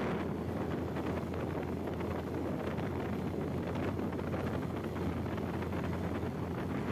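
Wind buffeting the microphone over the steady drone of a motorcycle under way.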